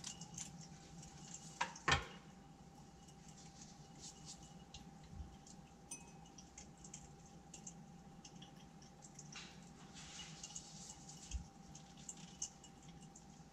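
Laboratory glassware being handled: faint small clinks, taps and clicks, with a sharper double knock about two seconds in, over a faint steady hum.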